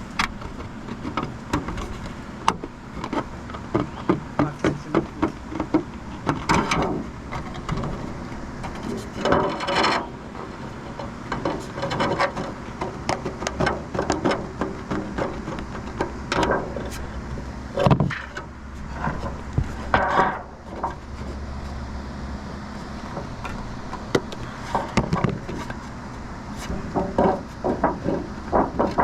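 Repeated hammer-like knocks on wood, some in runs of quick blows.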